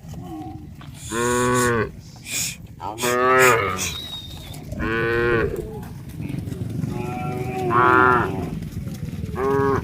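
A herd of cattle mooing in turn: about six short moos from different cows, the loudest a little past three seconds in. A steady low rumble lies under them, and a few sharp clicks come in between the first and second moos.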